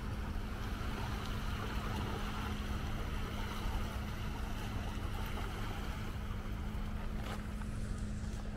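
Steady lakeshore ambience: a constant low hum under an even wash of wind and small waves lapping the shore.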